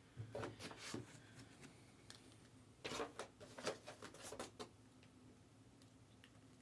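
Faint rustling and clicking of trading cards and packs being handled, in two short spells, the first near the start and the second about three seconds in.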